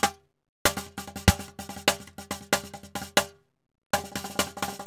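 Cajon played by hand: quick runs of sharp slaps and taps with one deep bass stroke, in two phrases that each stop abruptly, with a short silent gap between them.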